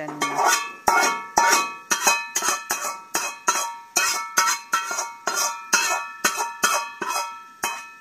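Metal spoon knocking and scraping against a small frying pan, about three ringing metallic strikes a second, as the tadka is emptied into the pot of palak paneer.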